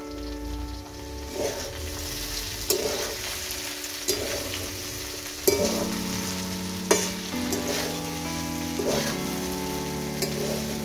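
Potato and okra (aloo bhindi) sizzling as they fry in a metal wok. A metal spatula stirs and scrapes the pan, knocking against it about every second and a half.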